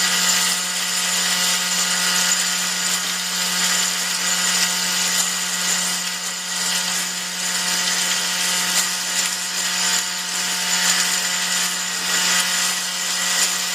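Workshop machinery running steadily: a constant low hum under a high hiss and whine, with small irregular scrapes, like a power tool or machine tool cutting metal.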